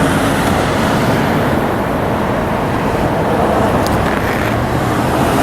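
Steady, dense freeway traffic noise: the continuous rush of many cars' tyres and engines passing.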